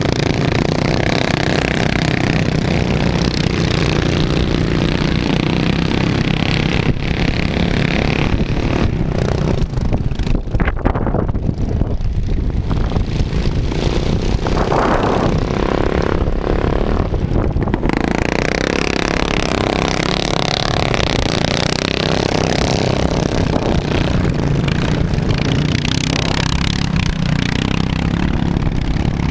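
Steady motor and propeller drone of a small multirotor camera drone in flight, heard from its onboard camera.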